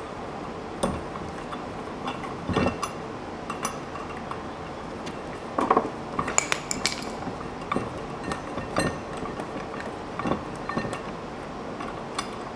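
Irregular metallic clinks and taps of hand tools, an Allen key and an open-end wrench, against the clutch's steel weight pin and lock nut as the nut is run down onto the threads.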